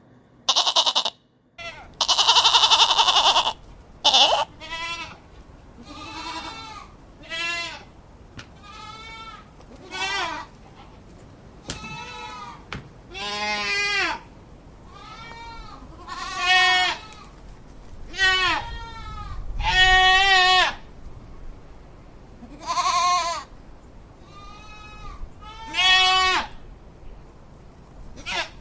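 Goats bleating over and over, some twenty separate wavering calls each lasting up to about a second. The first few calls are the loudest and harshest.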